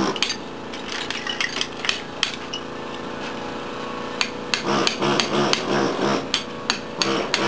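Gison GPW-4500 pneumatic air hammer, rated at 4,500 blows a minute, running with a steady tone as its chisel chips ceramic tiles off a wall. Sharp cracks of tile breaking away come throughout and grow more frequent in the second half.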